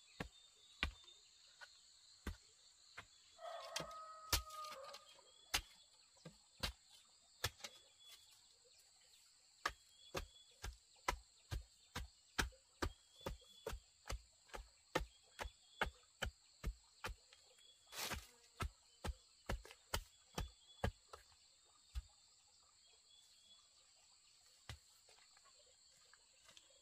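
A series of sharp knocks, irregular at first and then about two a second through the middle stretch, over a steady high insect drone. A brief pitched call sounds about four seconds in.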